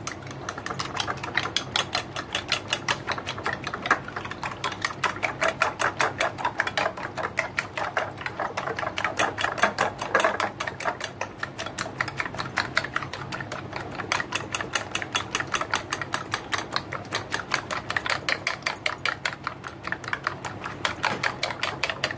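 Steel spoon beating raw eggs in a bowl, clicking against the bowl's side in a fast, even run of strokes.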